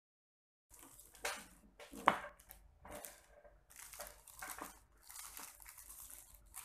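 Clear plastic wrapping crinkling and rustling in irregular crackles as the plate wrapped in it is handled, starting shortly in, with a single sharp click about two seconds in.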